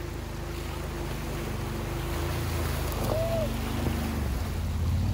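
Can-Am Defender side-by-side's engine running steadily at low revs, with wind noise on the microphone.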